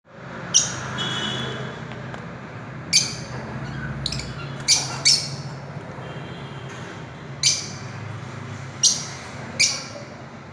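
Fischer's lovebirds giving short, shrill squawking calls, about seven sharp ones spaced irregularly, over a steady low hum.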